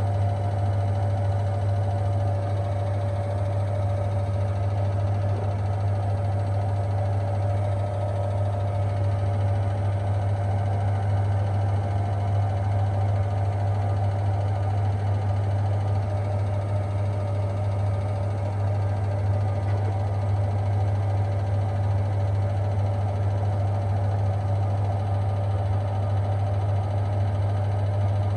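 Front-loading washing machine on its 800 rpm spin, the drum and motor held at full speed with a strong low hum and a steady whine above it, unchanging throughout.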